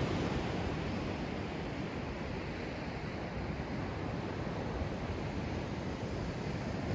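Steady rushing noise of sea surf and wind, with a low wind rumble on the microphone.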